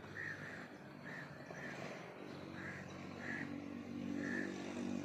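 Birds calling in short notes repeated about every half second, with a low engine hum from a motor vehicle coming up about halfway through and growing louder.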